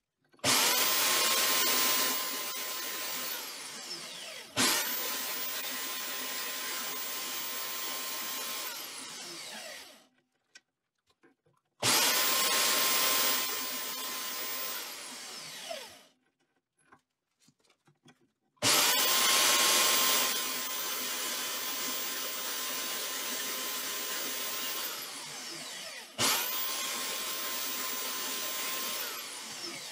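Electric saw with a reciprocating blade cutting 3/8-inch aluminium plate, started and stopped several times. It runs in three stretches of several seconds with short pauses between. Each stretch starts loudest and then settles to a steady whine, and there are two brief stops and restarts.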